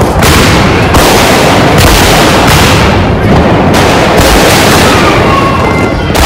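Diwali firecrackers bursting in a fast, unbroken run of loud bangs, with a few sharper cracks standing out and faint high whistles near the end.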